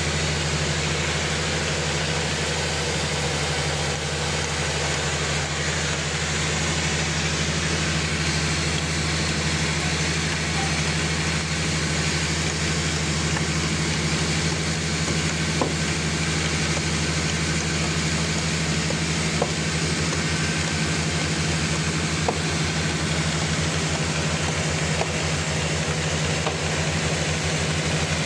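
Sawmill running steadily with a constant low hum, with a few sharp ticks in the second half.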